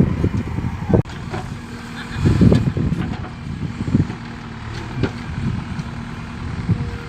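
JCB 3DX backhoe loader's diesel engine working, with the engine note swelling and easing and the loudest surge a couple of seconds in, and a few sharp knocks about a second in and around four seconds in.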